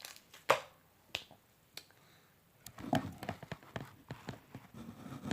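Slime softened with lotion being squeezed and poked, making sharp wet pops. There are a few single pops at first, then from about halfway a quick run of clicking, crackling pops.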